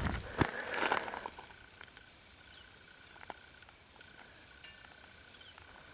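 Footsteps on outdoor ground that stop about a second in. Then a quiet outdoor background with a faint steady insect trill and a few small ticks.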